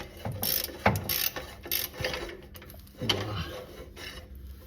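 A wrench turning rusted exhaust-joint nuts loose: a run of irregular metallic clicks and rasps as each nut is worked round on its rusty thread.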